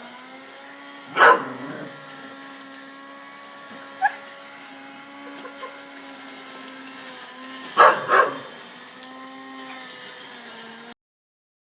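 A whippet barking: one bark about a second in and two more in quick succession near eight seconds, over the steady electric hum of an automatic lawn mower's motor. The sound cuts off suddenly near the end.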